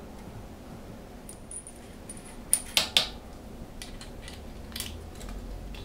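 Small metal objects clinking as they are handled: a few light clicks, then three sharp metallic clinks about halfway through with a brief ring, followed by softer clicks.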